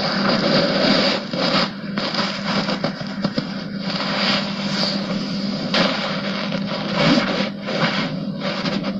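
Blanket and bedding rustling and rubbing close to a microphone in irregular waves, over a steady low hum.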